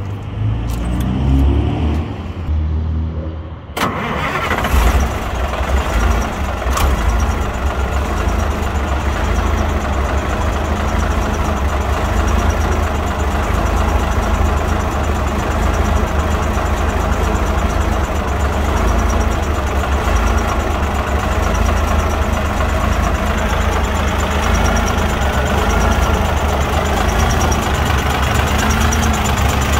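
1965 Mack B Model fire truck's Thermodyne engine cranking on the starter, catching about four seconds in, then idling steadily. The owner says it runs very well but has a lot of blow-by.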